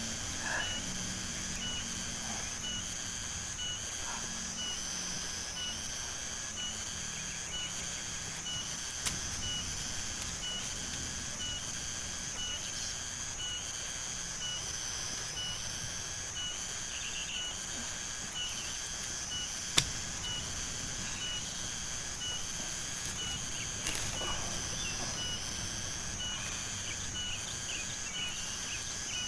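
Insects in the forest shrilling steadily, with a chirp that pulses on and off at an even rhythm. A couple of sharp clicks stand out, one about nine seconds in and a louder one about twenty seconds in.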